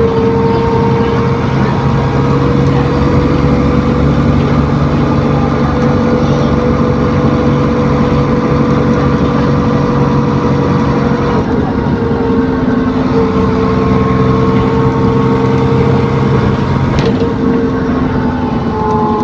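Interior of an ADL Enviro400 Trident bus with a Voith gearbox driving along gently: engine and drivetrain running with a steady whine (the 'hoover') that drifts slowly in pitch, along with a whooshing noise. The uploader calls the whine and whoosh weird and very odd-sounding.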